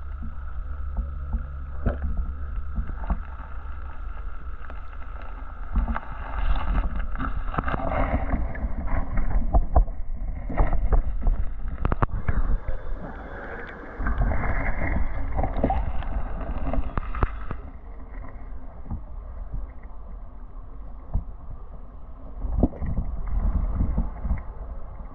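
Shallow river water heard muffled through a camera held at or under the surface: a steady low rumble of moving water with many scattered knocks and clicks. It grows busier and louder through the middle, then settles.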